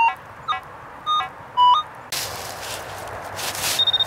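Metal detector sounding short target beeps, four in quick succession, some stepping up or down in pitch as the coil passes over a target. From about two seconds in a rough rustling, scraping noise takes over, with a single high beep near the end.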